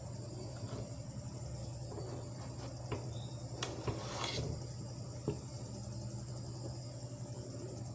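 A few sharp knife taps on a cutting board as a gourd is cut into pieces, over a steady high chirring of crickets and a low hum.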